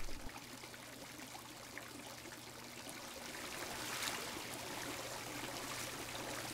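Hot tub water trickling and splashing, with a low steady hum underneath. The splashing swells briefly about four seconds in.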